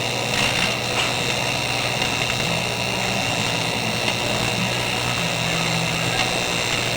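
AC TIG (GTAW) welding arc on aluminum buzzing steadily, a constant low hum with a hissing crackle over it.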